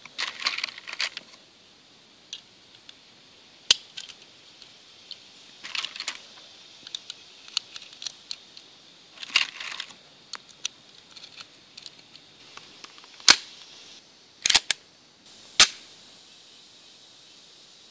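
9mm cartridges pressed one at a time into a Kahr CW9's stainless steel magazine: small clusters of metal clicks and scrapes every few seconds. Near the end come three louder, sharp clacks about a second apart.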